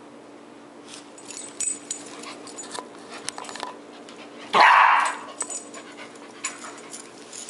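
Small Yorkshire terrier–schnauzer mix puppy giving one loud, short bark about halfway through, amid light clicks and rattles as it scuffles with a cat on a wooden kitchen floor.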